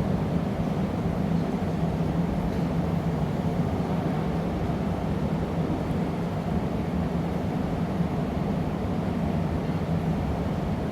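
Gas burners of a glassblowing workshop roaring steadily, with a low hum under the flame noise.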